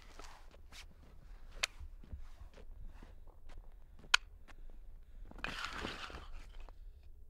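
Wooden hand blocks of a prostrating pilgrim clacking sharply three times, then scraping along asphalt for about a second near the end as she slides forward flat onto the road.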